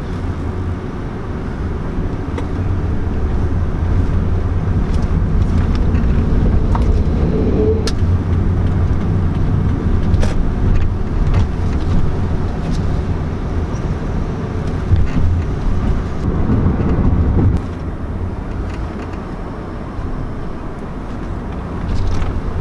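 2008 Toyota Prius driving, a steady road and tyre rumble with a few scattered sharp knocks. The knocks are the suspension noise from the top of the strut tower that the owner is trying to have fixed.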